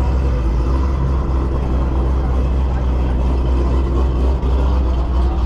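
A motor vehicle engine running steadily with a deep, constant low hum.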